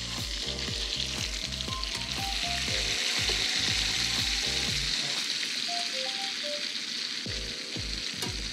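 Chicken stock sizzling and bubbling in a hot frying pan of garlic herb butter and lemon juice as it is poured in, with a steady hiss. A spatula stirs it near the end.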